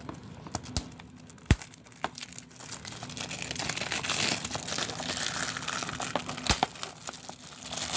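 Plastic packaging of a Blu-ray case crinkling as it is handled, with two sharp clicks, one about a second and a half in and one near the end.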